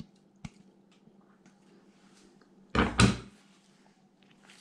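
A loud double thump, two knocks close together a little under three seconds in, with a few faint clicks before it.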